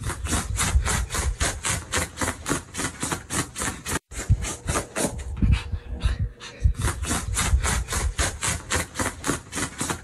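A small puppy digging at a quilted duvet with its front paws: rhythmic scraping of claws on fabric, about four or five strokes a second. It pauses briefly a little past the middle, then starts again.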